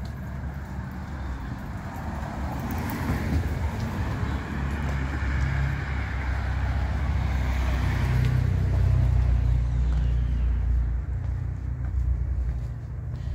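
A car driving past on the street, its engine rumble and tyre noise swelling over several seconds and then fading away.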